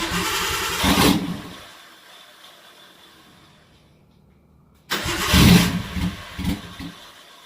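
Nissan R32 Skyline's engine started and run briefly through a catless test pipe and open exhaust: a loud burst that dies away within about two seconds, then a second burst about five seconds in with a few quick pulses. This is a test of whether the new test pipe changes the exhaust note.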